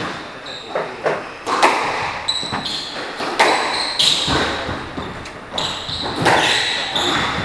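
Squash rally on a hardwood court: a few sharp hits of racket on ball and ball off the walls, ringing briefly in the court, with athletic shoes squeaking on the wooden floor between them.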